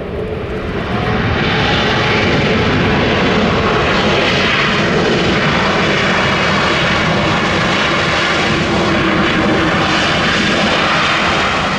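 Airbus A321neo's Pratt & Whitney geared turbofan engines running loud as the airliner rolls out on a wet runway, with the hiss of spray thrown up by the wheels and engines. The noise rises about a second in and then holds steady.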